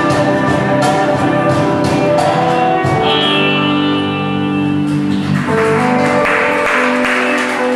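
Live acoustic music with guitar and other instruments holding sustained notes, with a high note sliding down about three seconds in.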